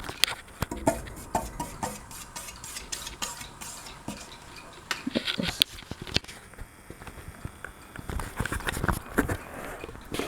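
Irregular light clicks, taps and rattles of objects being handled, denser about eight seconds in.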